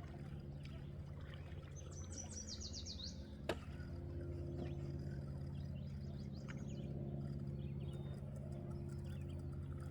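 A bird sings a fast trill of short high notes about two seconds in, with other scattered bird chirps, over a steady low hum. A single sharp click sounds about three and a half seconds in.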